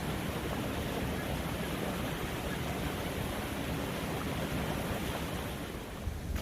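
Steady rush of wind on the microphone mixed with sea waves at the shore, easing slightly near the end.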